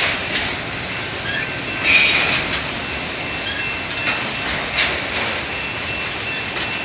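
Freight train of autorack car carriers rolling past, steel wheels rumbling steadily on the rails with a few louder clacks over rail joints, the biggest about two seconds in. A thin steady high squeal runs underneath from the train braking.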